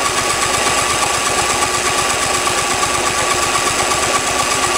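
Small horizontal-shaft snowblower engine running at full throttle without an air filter, with a rapid, even firing beat and a steady level.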